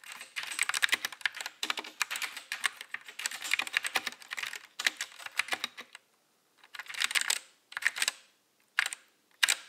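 Fast typing on a Kraken Pro 60% mechanical keyboard with red switches: a rapid, dense run of key clacks that stops about six seconds in, then returns in a few short bursts.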